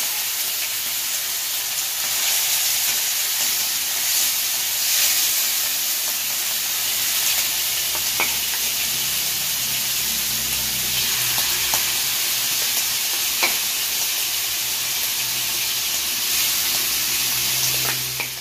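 Marinated prawns sizzling steadily as they fry in hot oil in a frying pan, with a few light clicks scattered through.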